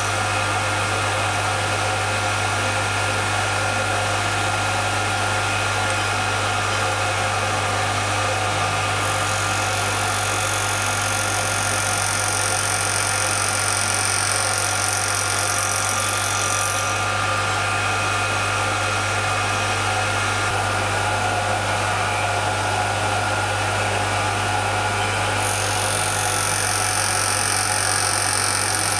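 Small milling machine spindle running steadily with a fly cutter cutting teeth in a brass clock wheel blank. Twice, for several seconds (about nine seconds in and again near the end), a high-pitched hiss joins the running sound as the cutter passes through the brass.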